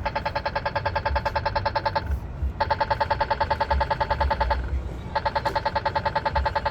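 Polara EN4 accessible pedestrian signal push-button sounding its walk-phase rapid tick: fast, evenly spaced pitched ticks in three runs with short breaks between them, over low traffic rumble. The rapid tick signals that the walk light is on.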